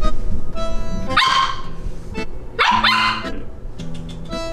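Bichon frise barking twice, about a second and a half apart, over background music.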